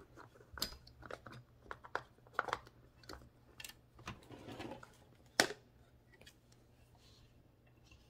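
Index plate of a 1925 AEG Mignon 4 index typewriter being worked loose by hand: scattered small clicks, knocks and scraping of its parts, with one sharp click about five and a half seconds in, then fainter handling.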